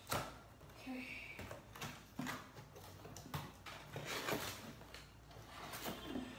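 Cardboard packaging being handled: a boxed frying pan scraping and rustling against a corrugated shipping carton as it is lifted out, with a series of light knocks.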